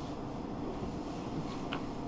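Steady low background hum with one faint tick near the end; the drill is not running.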